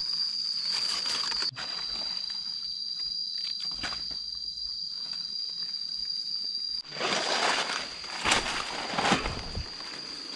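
A steady, high-pitched insect drone with scattered rustling and crackling in dry leaf litter. About seven seconds in, the rustling and crunching become much louder and denser.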